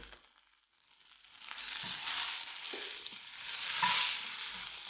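Indian tempering (tadka) sizzling in hot ghee in a stainless-steel pan as curry leaves, dals and nuts are stirred with a wooden spatula. The sizzle starts about a second and a half in and goes on steadily, with a few soft knocks of the spatula.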